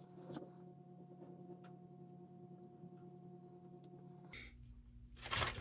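Faint steady electrical hum with a few light clicks, then a short burst of rustling noise near the end.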